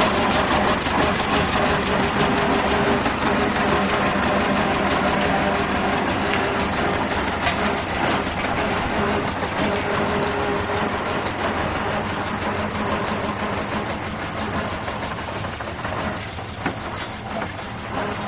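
Aveling Barford road roller's diesel engine running steadily with a fast, even chugging beat, slowly growing fainter over the stretch.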